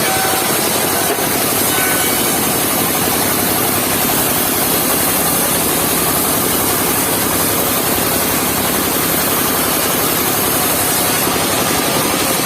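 Engine-driven mobile circular sawmill running steadily, its saw blade cutting through a log.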